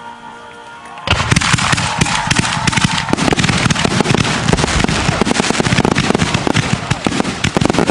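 Fireworks going off in a dense, rapid barrage of bangs and crackling, starting suddenly about a second in, with a brief whistling tone in the middle of it.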